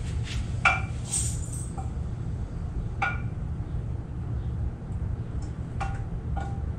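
A frying pan and a small dish clinking together as butter sauce is poured out: about five short, ringing clinks spread out over a steady low hum.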